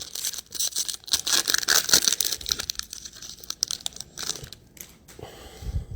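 A trading-card pack's foil wrapper being torn open and crinkled by hand. The crackling is densest for the first two to three seconds, then thins to scattered crinkles and clicks.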